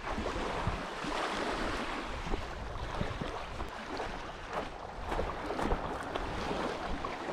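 Footsteps crunching over gravel and loose rock, with scattered clicks of stones underfoot, over a steady wash of small waves lapping at the shore.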